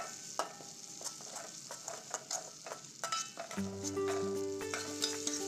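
Spice paste of red chili, garlic and onion sizzling in hot oil in a wok while a spatula scrapes and taps against the pan as it is stirred; the paste is being sautéed until fragrant. About three and a half seconds in, background music with held notes comes in.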